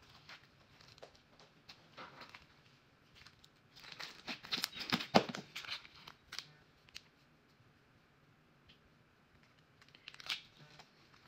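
Glittery slime being stretched, folded and pressed, giving sticky crackling, popping squelches that are thickest and loudest about four to five and a half seconds in. Near the end a short crinkle as a small plastic bag of glitter is shaken over the slime.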